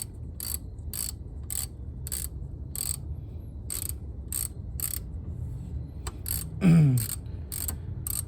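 Socket ratchet loosening a 10 mm fan bolt, its pawl clicking about twice a second on each back-stroke. About two-thirds in comes a short, loud sound falling in pitch, like a man's grunt.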